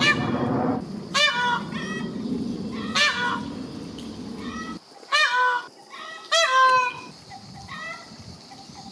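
Indian peafowl calling: four loud, short, wailing calls about two seconds apart, each sliding up and then down in pitch, with softer calls in between and after. A steady low rumble of background traffic runs under the first half and stops suddenly about halfway through.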